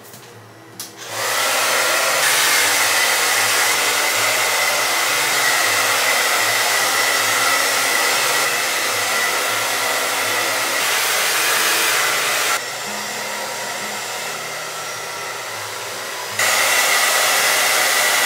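Handheld hair dryer switched on about a second in, blowing steadily with a thin whine over the rush of air. About two-thirds of the way through it drops quieter for a few seconds, then comes back to full strength near the end.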